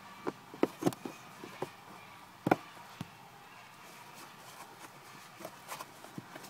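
Hard plastic clicks and knocks from the Mahindra XUV500's cabin air filter frame and housing being handled and fitted by hand: a quick cluster in the first second, the loudest knock about two and a half seconds in, then fainter taps.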